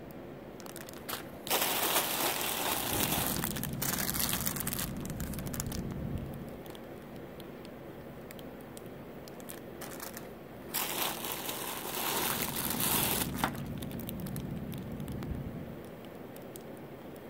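Clear plastic bags crinkling and rustling as bagged jewelry is handled and pulled from a box. The rustling comes in two bouts, one starting about a second and a half in and one around eleven seconds in, over a low steady hum.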